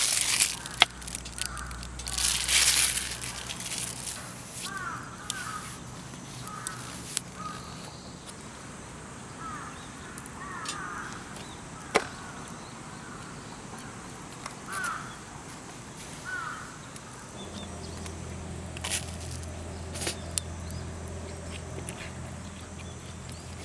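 Crows cawing repeatedly, a string of short calls, with a rustle near the start and scattered sharp clicks and snaps; a low steady hum comes in after about seventeen seconds.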